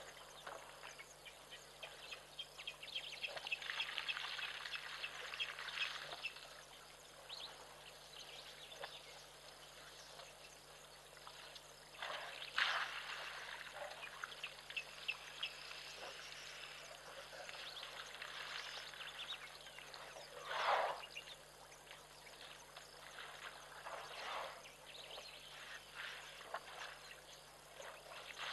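African elephants drinking in a waterhole: water pours and splashes from their trunks in irregular gushes, a few of them louder.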